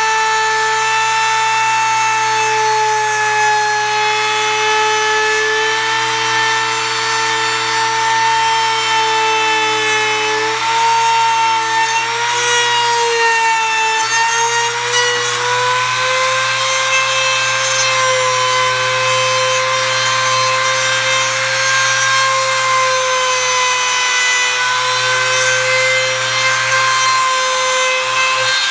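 Makita trim router running with a steady high whine as its bit carves a decorative pattern into wood. The pitch wavers about halfway through, then settles slightly higher.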